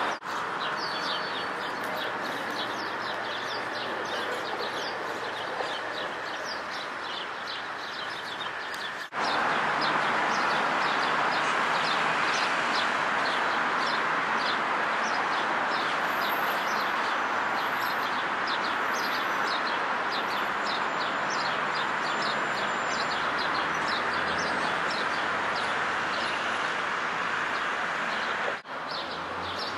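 Birds chirping rapidly and continuously, several short chirps a second, over a steady hum of distant street traffic.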